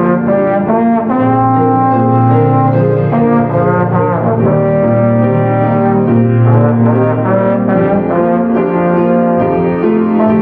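Tenor trombone playing a melodic line of held and moving notes over piano accompaniment, with a slide glide in pitch about four seconds in.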